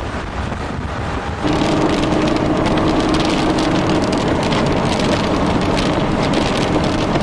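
Inside a moving vehicle: road and wind noise, then from about a second and a half in a louder, dense patter of rain hitting the car over a steady hum from the engine and tyres.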